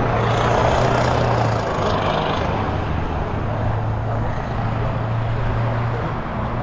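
Road traffic: a vehicle passing, its noise swelling over the first couple of seconds and easing off, over a steady low hum.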